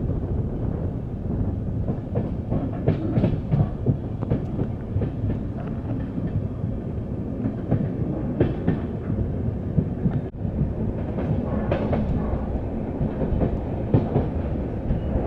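Wheels of a moving passenger train running over the rails, heard from on board: a steady rumble with irregular clicks and knocks from the track, and a brief drop in the rumble about ten seconds in.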